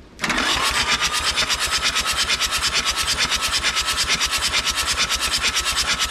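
Starter motor cranking the Nissan (Hanix) N300 mini excavator's Mitsubishi diesel with its glow plugs removed. The engine turns over quickly and evenly in a fast rhythm, with a steady whine from the starter. This is the hydrolocked engine being spun to blow water out of its cylinders through the open glow-plug holes. It starts a moment in.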